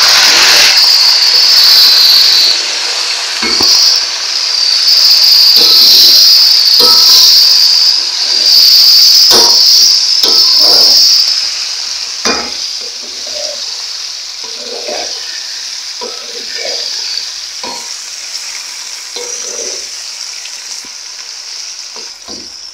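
Raw chicken pieces sizzling in hot oil with fried onions and spices in a metal cooking pot, stirred with a wooden spoon that knocks and scrapes against the pot now and then. The sizzle is loud for the first ten seconds or so as the cold chicken hits the oil, then settles to a quieter sizzle.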